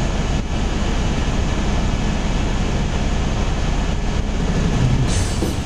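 Helicopter cabin noise: the engine and rotor running steadily in flight, heard from inside the cabin.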